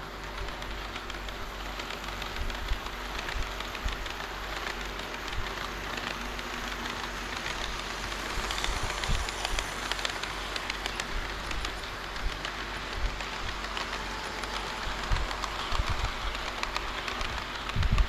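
HO-scale model train running on layout track: a steady rolling rattle of metal wheels on rail, dotted with many small clicks. It grows louder toward the middle and again near the end, with a few low knocks at the end.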